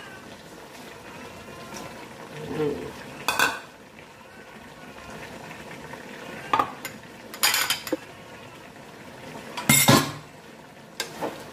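Cooking utensils clattering in a nonstick wok as carrot and potato go in: a wooden spatula knocks against the pan in about five sharp clacks, the loudest about ten seconds in.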